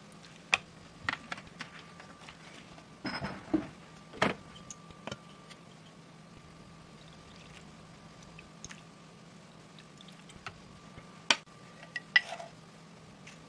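Kitchen utensils and dishes being handled: scattered sharp clicks and clinks, with a short noisy scrape or pour about three seconds in, over a faint steady hum.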